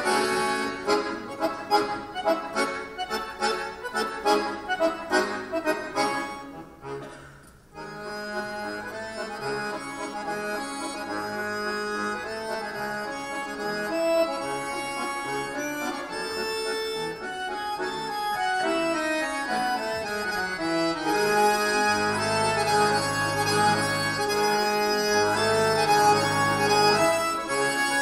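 Two chromatic button accordions playing a duet: fast pulsing chords that fade almost to silence about seven seconds in, then held notes, a descending run, and deep bass notes entering near the end.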